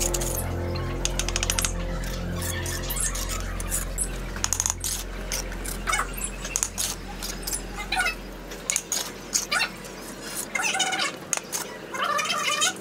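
Steel bricklaying trowel clinking and scraping against bricks and wet mortar, with sharp irregular taps as the trowel handle knocks bricks down into their mortar bed. Background music fades out over the first two-thirds.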